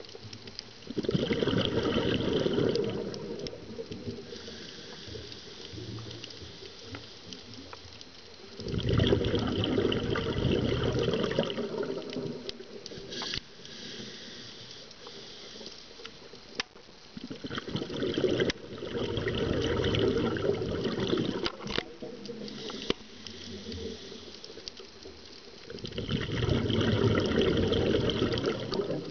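Scuba diver's regulator exhaust bubbles, heard underwater: four bursts of bubbling, each two to three seconds long, about eight seconds apart in the rhythm of breathing, with scattered faint clicks between.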